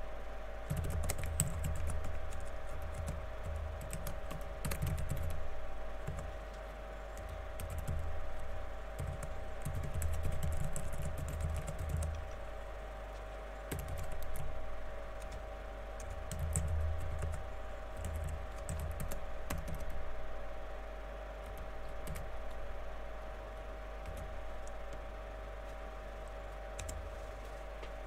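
Typing on a computer keyboard in bursts of quick key clicks with short pauses between them, over a steady background hum.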